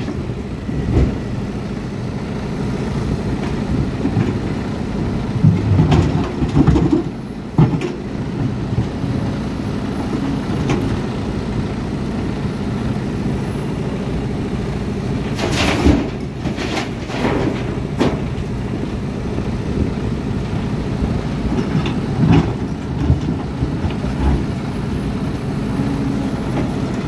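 A SANY 335 hydraulic excavator's diesel engine working under load while it digs and loads a dump truck. About a third of the way in, and again a little past halfway, loads of soil and rock crash and clatter into the truck's steel body.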